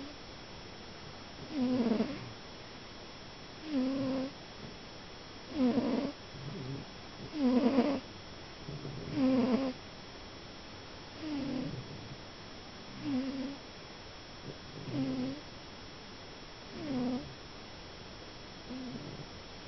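Domestic cat snoring in sleep: a short pitched snore on each breath, about one every two seconds, ten in all. The snores are loudest in the middle and grow softer toward the end.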